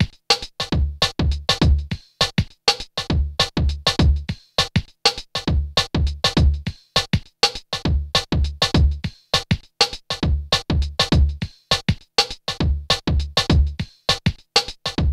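Background electronic music with a steady drum-machine beat and deep kick drums.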